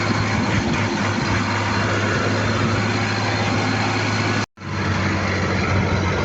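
A vehicle engine running steadily with a strong low hum. It cuts out abruptly for a split second about four and a half seconds in, then carries on.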